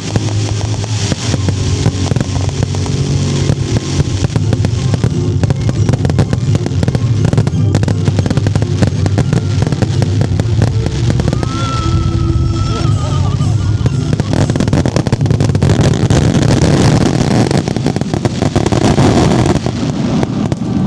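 Aerial fireworks bursting in rapid succession with crackling, over music playing; the barrage grows denser and louder over the last several seconds.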